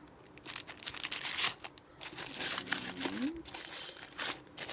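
Clear plastic jewellery bags crinkling as bagged earring and brooch cards are handled and rifled through, in a run of short rustles with a brief pause about halfway.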